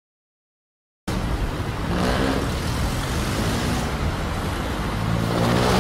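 About a second of silence, then street traffic cuts in: motor vehicle engines running close by, one engine's note growing louder near the end.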